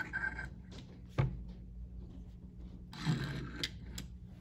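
Hot Wheels Formula E Gen 2 die-cast toy car knocking and rolling on a wooden tabletop. There is one sharp knock about a second in, and a few light clicks near the end as it is pushed up against other die-cast cars.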